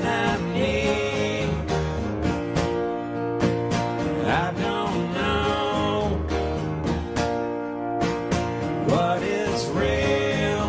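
Live acoustic rock: two steel-string acoustic guitars strumming chords in a steady rhythm, with a voice singing three drawn-out phrases over them.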